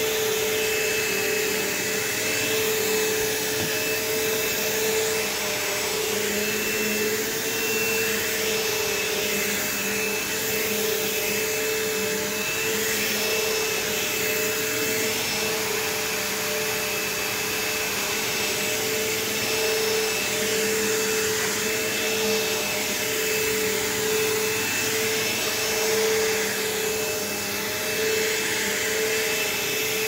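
Bissell PowerForce bagged upright vacuum cleaner running on carpet as it is pushed along. A steady motor hum sits over the rush of air, swelling slightly in loudness as it moves.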